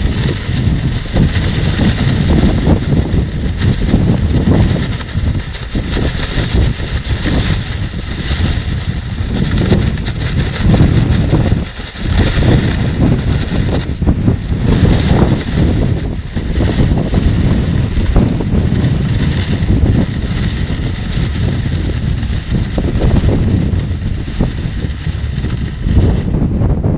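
Strong wind gusts buffeting the microphone with a heavy rumble that swells and dips, while a plastic rainsuit rustles and crackles in the wind.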